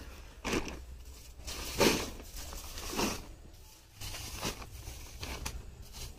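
Crushed ice crunching and scraping as hands scoop and press it around fish in a plastic-lined basket, with the plastic sheet crinkling. A few irregular crunches, the loudest about two seconds in.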